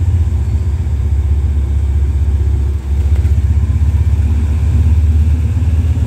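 Hitachi diesel-electric locomotive 4518 running as it pulls slowly in along the platform, a steady low engine drone.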